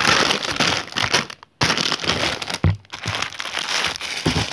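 Packaging being crinkled and rustled while items are pulled from a box, with a short pause about one and a half seconds in.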